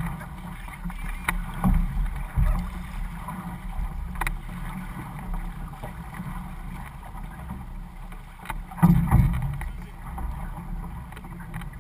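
Outrigger canoe being paddled: water rushing along the hull and paddle splashes, over a low wind rumble on the microphone. Occasional sharp knocks cut through, the loudest about nine seconds in.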